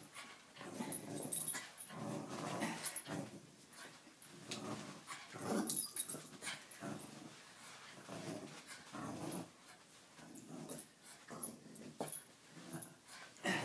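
Jack Russell terrier growling in repeated short bursts while jumping and tugging at a tug toy.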